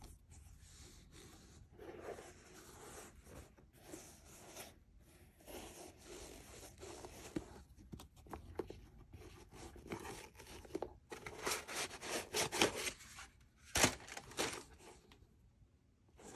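Hands handling a new Air Jordan 1 Low sneaker: fingers rubbing and scratching over the leather, laces and paper stuffing in quick, irregular rustles. A run of louder scratchy strokes comes about eleven seconds in, and a single sharp click near fourteen seconds.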